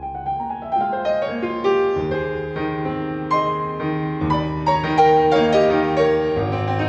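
Background piano music: a flowing melody of many quick notes over low held bass notes that change about every two seconds.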